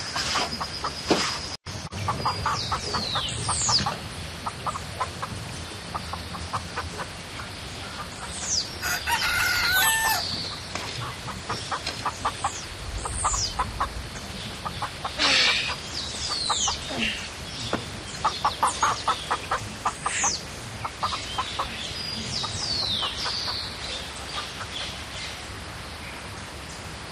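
Farmyard chickens: hens clucking in quick runs and a rooster crowing once, about nine seconds in. Other birds give short, falling high calls throughout.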